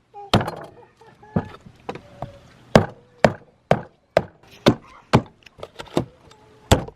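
Hatchet chopping into a beef steer's head to split the skull, a string of sharp blows that comes about two a second in the second half.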